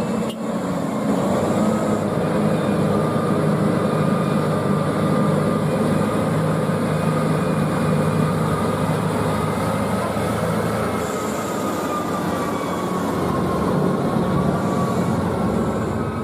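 Steady rumbling, rattling noise of a running vehicle, with a faint whine that drifts slowly in pitch.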